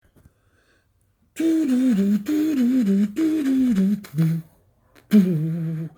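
A person humming a melody without accompaniment. It starts about a second and a half in, in five short phrases that each step down in pitch.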